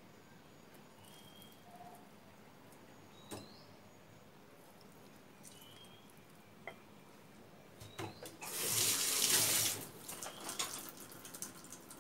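A short rush of running or poured liquid, about a second long and about eight and a half seconds in, followed by a few light clicks and knocks.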